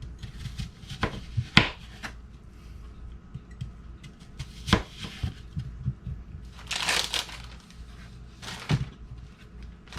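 Vegetable prep with a knife on a cutting board: a few scattered sharp knocks and clatters, and a brief rustle about seven seconds in.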